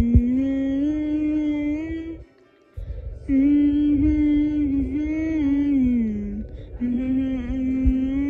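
A female voice humming a song melody without words, in long held notes that glide gently up and down. It comes in three phrases, with short breaks about two seconds in and about six seconds in.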